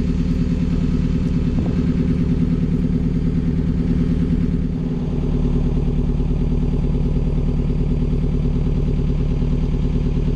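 Hire motor cruiser's inboard diesel engine running steadily under way, with a brief slight drop in level about five seconds in.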